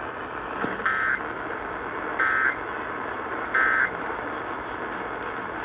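Emergency Alert System end-of-message signal: three short bursts of SAME data, each about a third of a second and about a second apart, over steady radio hiss. The bursts mark the end of the flash flood warning broadcast.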